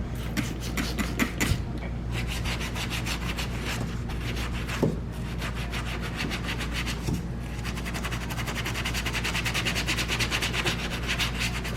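Brisk back-and-forth scrubbing on car interior trim, rapid rubbing strokes several a second as spray cleaner is worked in, over a steady low hum.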